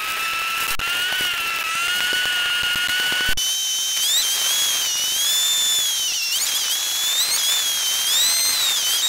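Honda Grom MSX125's single-cylinder engine played back sped up, so it comes across as a high-pitched whine that wavers up and down over a hiss of wind and rain. About three seconds in, the whine jumps abruptly higher.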